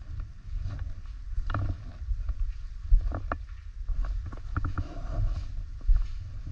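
Footsteps and a few sharp knocks and clicks from carried gear, over a low rumbling handling noise from a body-worn camera.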